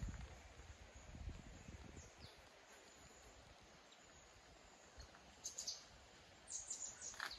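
Faint forest ambience: a low rumble, like wind on the microphone, in the first second or two, then a quiet hiss with a few brief high chirps in the second half.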